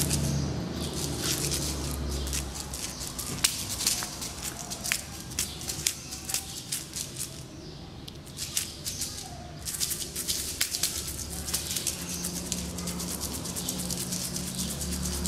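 A cat batting a small toy across a hard floor: irregular sharp clicks and taps of the toy and paw. A low steady hum sits underneath near the start and again near the end.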